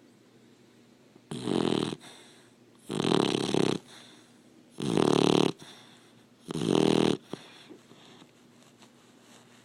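Labrador Retriever puppy snoring in its sleep: four loud snores, each under a second long and roughly two seconds apart, after which the breathing goes quiet.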